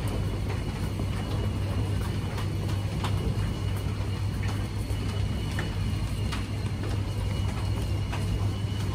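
Busy underground train platform ambience: a steady low hum with faint high steady tones, and scattered sharp clicks of shoes on the tiled floor as passengers walk past.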